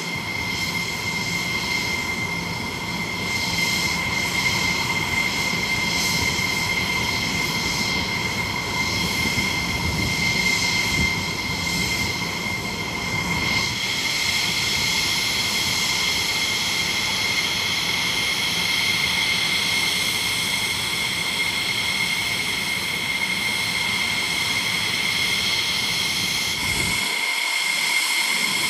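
Jet aircraft engines running steadily: an unchanging high turbine whine over a rumble, with no rise or fall in pitch. Near the end the low rumble cuts out while the whine carries on.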